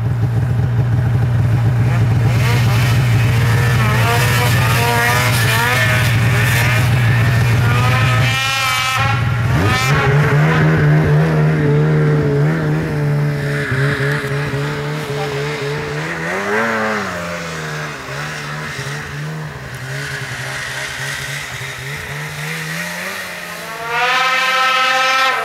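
Polaris Pro RMK snowmobile's two-stroke engine running hard at high revs while riding deep powder. It drops off briefly about a third of the way in, then picks up again with a few rises and falls in pitch, runs lower for a while, and revs up sharply near the end.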